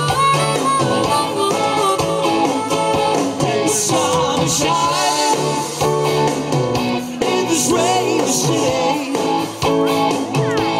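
A rock band playing live through a concert PA, with electric guitar and singing, heard loud from among the crowd.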